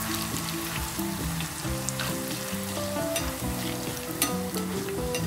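Lotus root slices deep-frying in hot oil: a steady bubbling sizzle with small crackles and pops, stirred with wooden chopsticks that click now and then. Soft background music plays under it.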